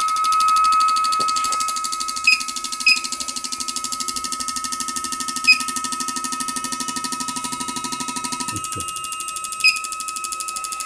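Petrol fuel injectors being pulsed on a test stand, clicking in a fast, even rhythm over a steady high whine. A lower hum stops about eight and a half seconds in, and a few short beeps sound along the way.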